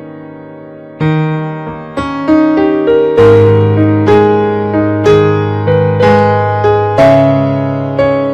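Background piano music: keyboard notes and chords struck about once a second, each fading away, with a low bass note coming in about three seconds in.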